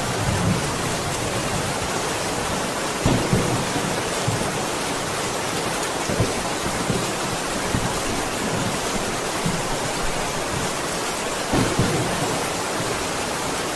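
Steady heavy rain falling in a constant dense hiss, with a few short, low thuds scattered through it.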